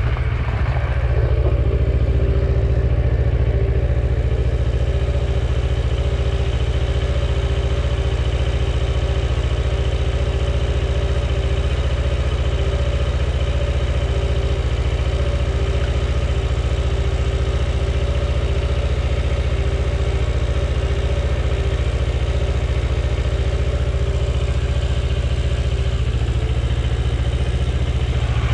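Kawasaki Versys 650's parallel-twin engine dropping in revs as the bike comes to a stop, then idling steadily.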